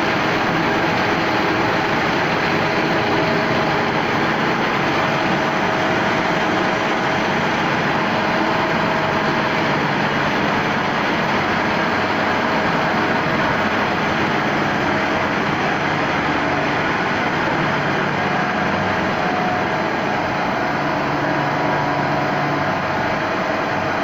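Steady running noise of a tube-ice machine's refrigeration plant: compressor and motors running continuously, with a few faint steady hum tones.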